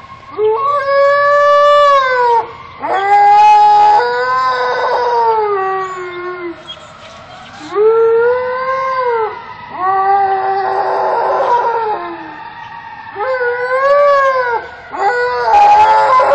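Alaskan Malamute howling: about six long howls with short breaks, each rising and then falling in pitch. It is answering passing fire engine sirens, which wail faintly behind it.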